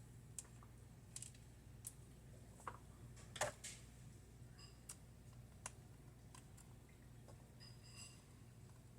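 Faint, irregular clicks and taps of small screws and a screwdriver being handled on a laptop's plastic case, one louder tap about three and a half seconds in, over a low steady hum.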